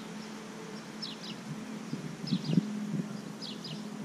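Steady hum of a hovering camera drone's propellers, with a bird repeatedly giving pairs of short downward-sliding chirps. A couple of dull thumps stand out about two and a half seconds in.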